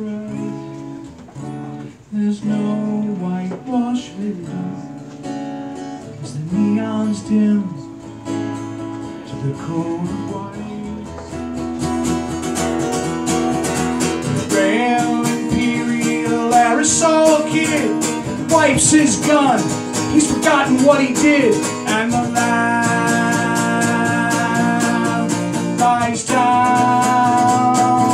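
Solo acoustic guitar playing an instrumental passage: picked chords at first, growing louder and fuller from about twelve seconds in.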